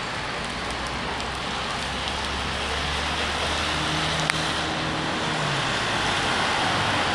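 Steady rain hissing on wet paving and road, with the low hum of a bus engine running and traffic on the wet street. A single sharp click a little after four seconds in.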